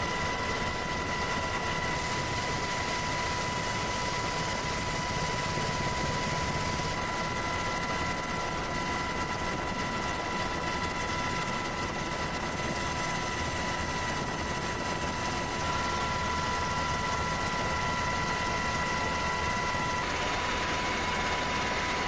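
Steady noise of the aircraft filming from above: an even rushing hum with a steady high-pitched whine, changing slightly at each cut between shots.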